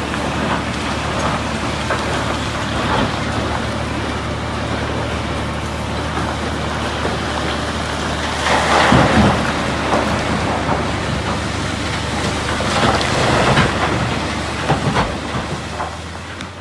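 Liebherr R 976 crawler excavator's diesel engine running steadily while rock is scooped and poured into a haul truck's bed, with loud rumbling clatters of falling rock about halfway through and again later. The sound fades out near the end.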